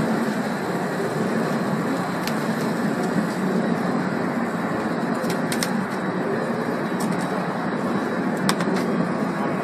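Stretch-wrap machine running steadily as it wraps machine stretch film around a load of bricks: a constant mechanical drone, with a few sharp clicks.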